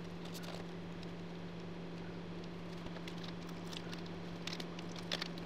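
Desktop computer running while it boots: a steady low hum over a faint hiss, with a few faint ticks.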